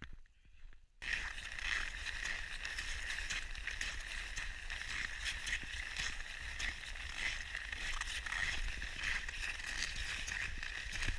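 Continuous crunching and scraping of snow close to the microphone, starting abruptly about a second in.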